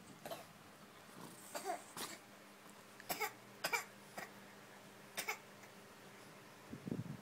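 Toddler making a string of short vocal sounds, about seven brief cries or coughs spread a second or so apart, with a few low knocks near the end.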